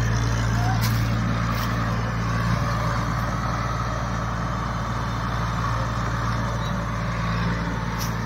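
Eicher 4WD tractor's diesel engine running steadily with a low hum as it works the field, pulling a rear-mounted implement.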